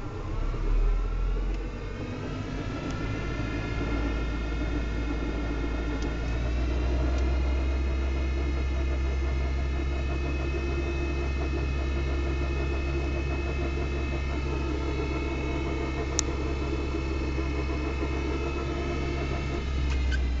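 Audi 80 B4's damaged CGT five-speed gearbox droning in fifth gear under way, with the engine and road rumble beneath. The drone climbs in pitch over the first few seconds, holds steady, then dips slightly near the end, with one sharp click about 16 seconds in. The hum and knocking in gears two to five are the sign of internal gearbox damage, and the owner does not know its cause.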